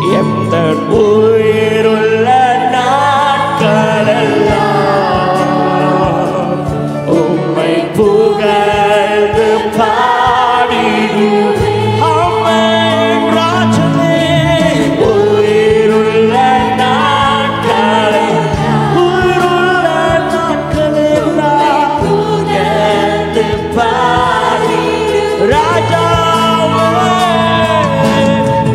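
Tamil Christian worship song performed live: several singers singing together in unison over a band of keyboards and percussion with a sustained bass line.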